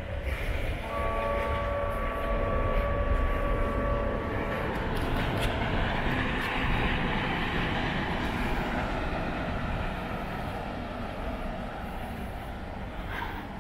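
A Walt Disney World monorail passing on its beam: a steady electric whine of several tones that stops about four and a half seconds in, then a swell of rushing noise, loudest a few seconds later, that slowly fades away.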